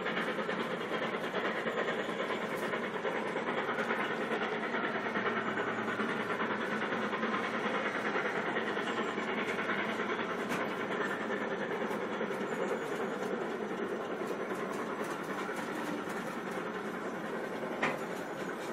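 Steam-hauled train behind a GWR Castle-class locomotive running away into the distance: a steady rumble of wheels on rail that slowly fades, with one sharp knock near the end.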